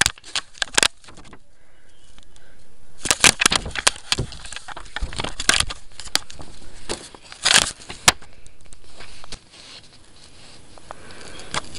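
Handling noise close to the microphone: a paper booklet being handled and its pages turned, giving irregular crackles, clicks and rustles, with the loudest bursts around a third and two thirds of the way in.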